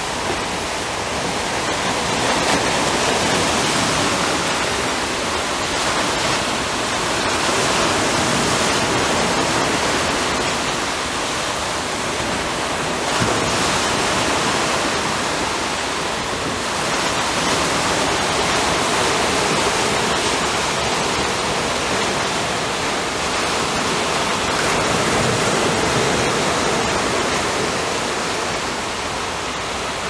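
Small Caspian Sea waves washing over the rock riprap at the foot of a seawall: a continuous rush of water that swells and eases every few seconds.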